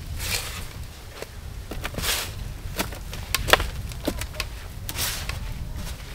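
Gloved hands rummaging and scraping through soil in a metal wheelbarrow, with a few sharp knocks of potatoes dropped into a plastic crate in the middle of the stretch. A low wind rumble on the microphone runs underneath.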